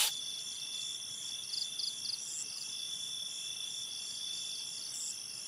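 Crickets chirping at night: a steady high trill with short groups of quicker chirps now and then.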